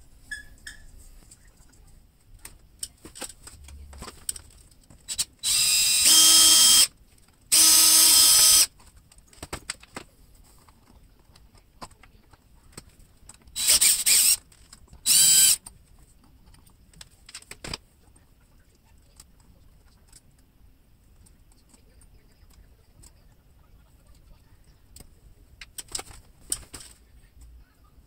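DeWalt cordless drill backing out the screws of an old ceiling light's mounting plate. It runs in four bursts of steady motor whine: two longer ones about a quarter of the way in, and two short ones about halfway. Small clicks and knocks of handling the fixture and screws fall between the bursts.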